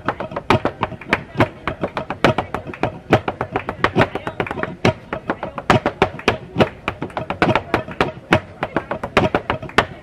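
Flamenco footwork (zapateado): shoe heels and toes striking a wooden stage in a rapid, uneven run of sharp strikes, several a second.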